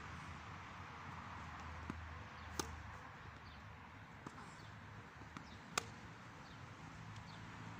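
Tennis rally: sharp pops of a racket striking the ball and the ball bouncing, five in all, the two loudest about three seconds apart, over steady background noise.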